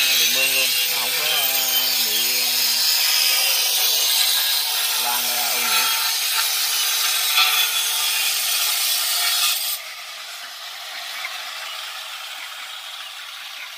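A cutting tool working on the farm build gives a steady, harsh rasping hiss that stops suddenly about ten seconds in.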